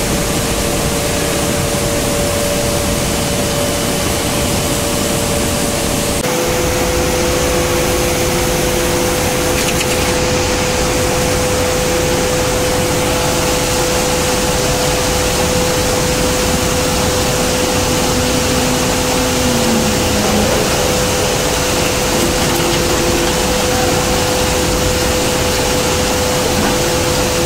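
Steady, loud din of steel-plant machinery around a continuous casting machine: a constant rushing noise with a steady mid-pitched tone running through it. The sound changes character about six seconds in, and a fainter lower tone comes and goes after that.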